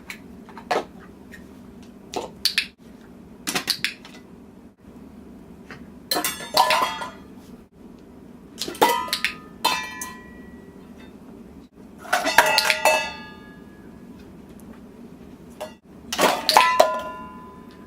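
Metal clattering and clinking in about eight separate bursts, several of them with a brief ringing tone as the metal settles.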